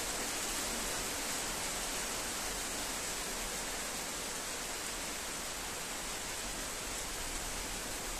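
Steady, even hiss of rain, with no thunder heard.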